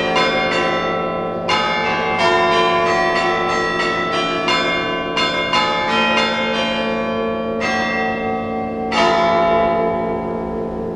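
Church tower bells struck one at a time, playing a melody: a stroke about every half second, each ringing on and overlapping the next. The last stroke comes near the end and its ringing dies away.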